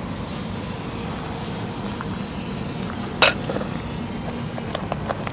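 Carp rod and spinning reel being handled: one sharp knock a little past three seconds in, then a run of light clicks.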